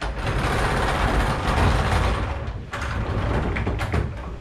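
Small casters on a heavy MDF workbench cabinet rolling and rumbling as it is pushed over an anti-slip diamond-plate vinyl floor. The floor's texture makes the casters roll poorly. The rumble pauses briefly a little over halfway, then resumes with a few knocks.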